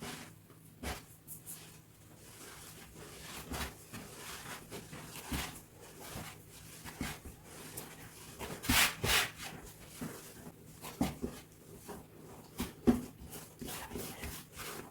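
Kitchen handling sounds of dough-making: irregular knocks, taps and rubbing on a work surface and bowl, with a louder rustling burst about nine seconds in.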